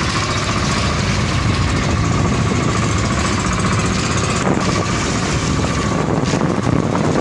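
Small motor boat's engine running steadily underway, a constant drone with an even hiss of wind and water over it.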